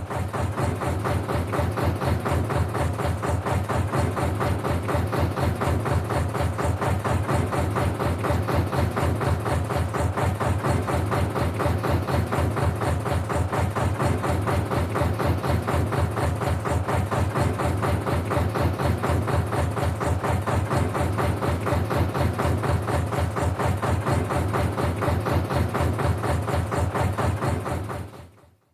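Canal narrowboat's diesel engine running steadily at idle with an even, rapid knocking beat; it fades out near the end.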